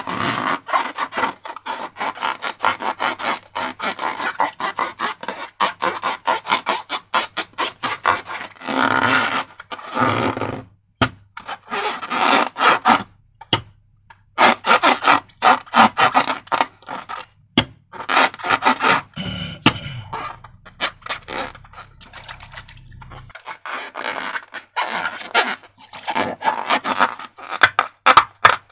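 Slime being squished and worked by hand: rapid runs of sticky clicks and crackles, broken by a few longer squishing stretches.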